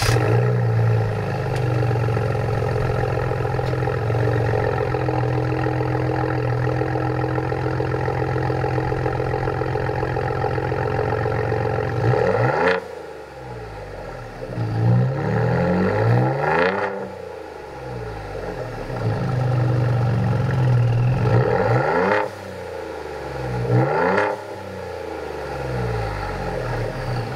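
Ford Bronco 2.7L EcoBoost twin-turbo V6 through a Corsa cat-back exhaust, idling steadily just after start-up, then revved up and back down a few times in the second half.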